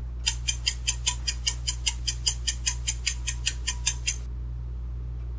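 Countdown-timer sound effect: a rapid, even clock ticking, about five ticks a second, that stops about four seconds in.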